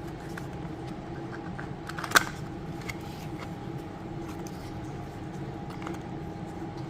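Light clicks and handling noises of a product box and its packaging being opened and unpacked, with one sharp snap about two seconds in, over a steady background hum.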